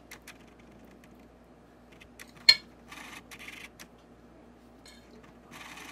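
Soft handling noises as filling is packed into a samosa pastry cone by hand: light rustling and scraping with a few small ticks, and one sharp click about two and a half seconds in.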